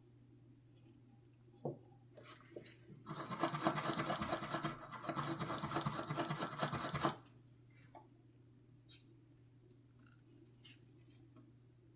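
Rapid, scratchy rubbing for about four seconds, made of many quick strokes, with a few small taps and clicks before and after it.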